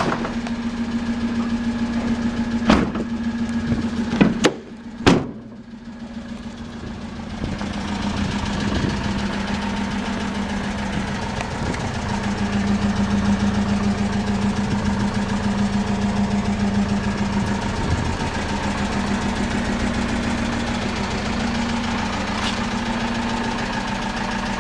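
Citroën Jumper 2.2 HDi four-cylinder diesel engine idling steadily. A few sharp bangs come about three to five seconds in.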